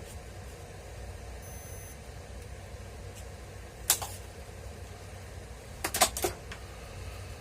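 Parts or tools being handled during a grinder repair, heard as one sharp click about four seconds in and a quick cluster of three or four clacks about two seconds later, over a steady low hum.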